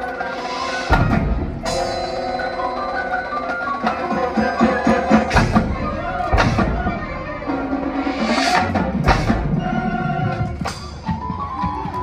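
Marching band and front ensemble playing, with mallet keyboards carrying pitched lines and sharp percussion hits and crashes landing every second or two.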